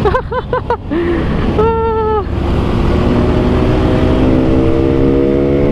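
Yamaha RX-King two-stroke single-cylinder engine running under way, with wind buffeting the helmet microphone; its pitch climbs slowly through the second half as the bike picks up speed. A few short wavering voice-like sounds come in the first second, and a short held tone about two seconds in.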